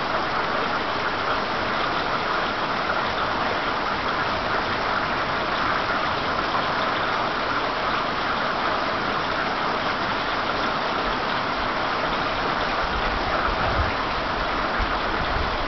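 Heavy rain pouring down in a steady hiss during a flood, with some low rumbling in the last few seconds.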